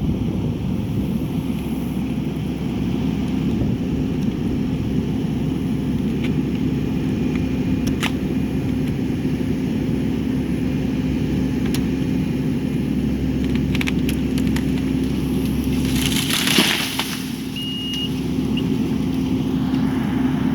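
An engine running steadily, with a brief crackling crash about sixteen seconds in.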